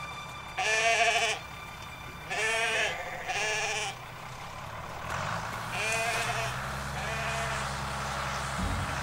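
Sheep bleating: three loud, wavering bleats in the first four seconds, then fainter bleats. About five seconds in, the steady low drone of a tractor engine comes in beneath them.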